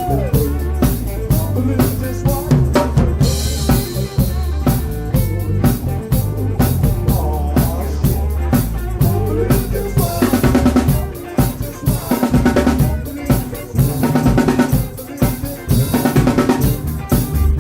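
Live funk band playing an instrumental passage. A busy drum kit with kick and snare leads over a bass line, and short repeated chord stabs come in from about ten seconds in.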